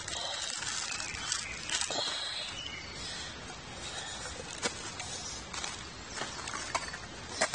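Tissue paper rubbed around the inside of a small metal camp cooker cup: dry rustling and scuffing, with a few light clicks as the cup is handled.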